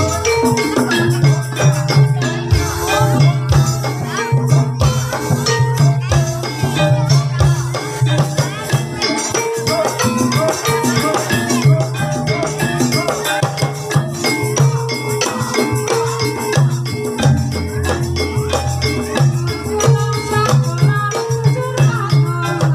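Live gamelan music accompanying an ebeg hobby-horse dance: tuned percussion and drums playing a dense, continuous rhythm, with jingling rattle-like percussion on top.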